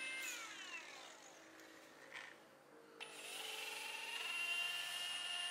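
Electric paint polisher's motor winding down with a falling pitch in the first second. About three seconds in it starts up again, rising in pitch and settling into a steady whine as the pad cuts oxidized paint on the aircraft's fuselage.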